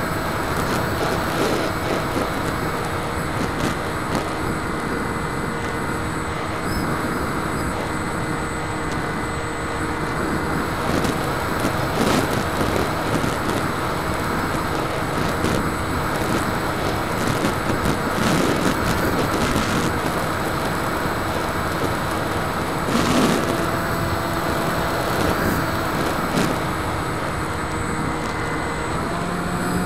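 Bixler 2 RC plane's electric motor and pusher propeller running steadily in flight, a constant whine with rushing air noise and a few brief crackles.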